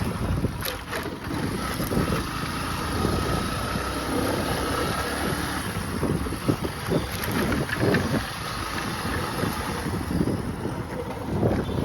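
Wind buffeting the microphone in uneven gusts over a steady noisy rumble.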